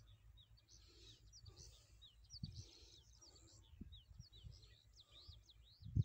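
Birds chirping: a quick run of short, high chirps, some sliding up in pitch and some down, over a low rumble with a few soft thumps and a sharper thump right at the end.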